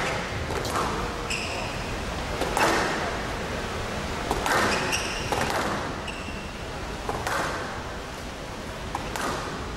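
Squash rally: the ball is struck by rackets and smacks off the court walls about every one to two seconds, with a few short high squeaks of court shoes on the floor.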